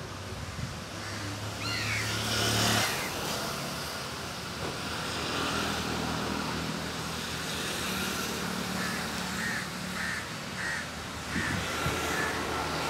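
Outdoor town ambience with a motor vehicle passing by about two to three seconds in. In the second half a bird calls in a run of short repeated notes, about two a second, likely a crow cawing.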